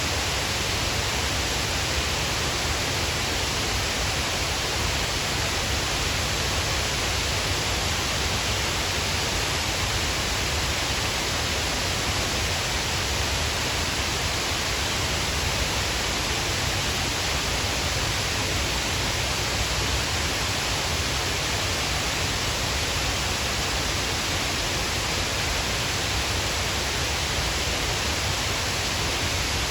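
Shiraito Falls, a wide curtain of many thin waterfalls, pouring steadily: an even, unbroken rush of falling water.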